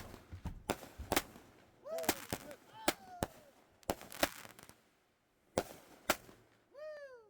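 Fireworks going off: about a dozen sharp bangs at irregular intervals, with a short lull about five seconds in.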